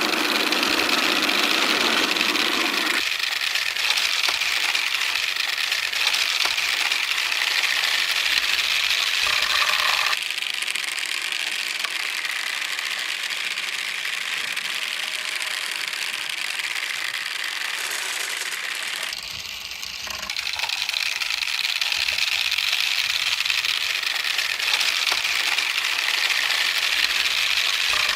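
Many marbles rolling and rattling along marble-run tracks in a continuous dense clatter. The sound changes character about three seconds in, again around ten seconds, when it turns a little quieter, and picks up again after about twenty seconds.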